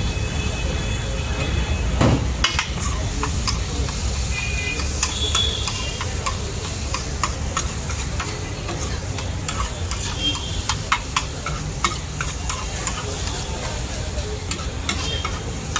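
Metal spatula scraping and clacking on a large flat griddle (tawa) as paneer and vegetables are stir-fried, with many sharp clacks over a steady sizzle.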